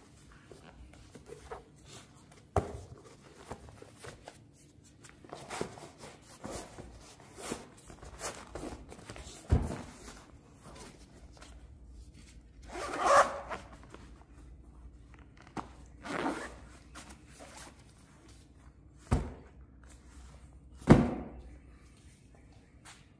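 A folded Ann Katy portable camping toilet being packed into its fabric carry bag: rustling and knocking as the parts go in, a zipper drawn shut, and a few thumps as the packed bag is handled and set down on the bench.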